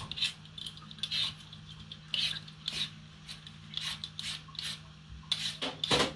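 Potato being peeled with a handheld Y-peeler: short, irregular scraping strokes, one or two a second, over a steady low hum.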